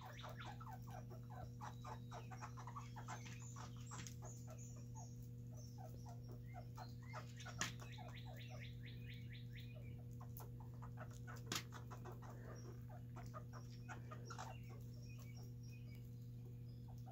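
Red squirrels chewing and gnawing on peanuts and seeds: a long run of quick, faint clicks, with two sharper cracks, one about seven and a half seconds in and one about eleven and a half. A steady low hum runs underneath.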